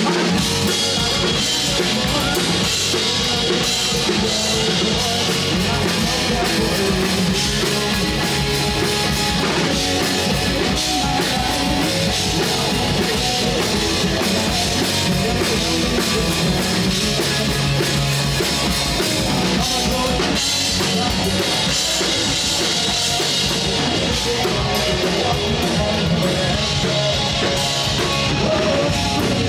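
Live rock band playing loudly and steadily: distorted electric guitar, electric bass and a full drum kit with kick drum and cymbals.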